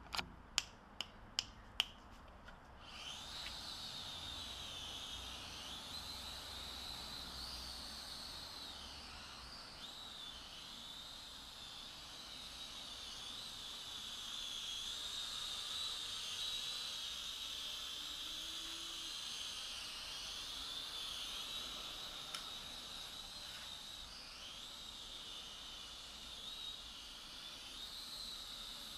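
Motors and propellers of a small FPV quadcopter in flight, a high whine whose pitch rises and falls with throttle, preceded about two seconds earlier by five sharp clicks in quick succession.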